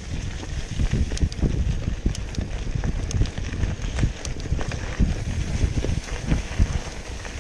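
Mountain bike rolling fast over a bumpy dirt trail: a steady rumble from the tyres with a rapid, uneven run of knocks and sharp rattles as the bike jolts over ruts and stones.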